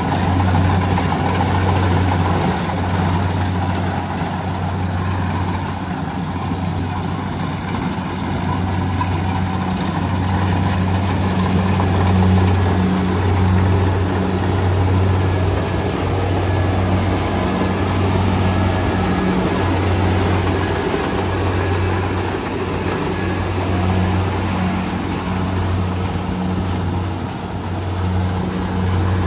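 Rice combine harvester's diesel engine running steadily at a constant speed, a strong low hum that wavers slightly.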